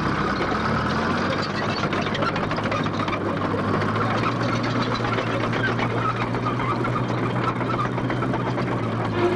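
Bulldozer engine running steadily with a clattering note.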